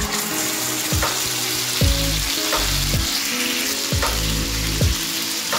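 Wet ground masala paste frying in hot oil in a nonstick frying pan, sizzling steadily as it goes in.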